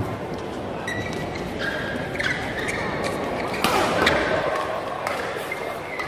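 Badminton rally in a large hall: sharp smacks of rackets hitting the shuttlecock, with shoes squeaking on the court floor and crowd voices behind.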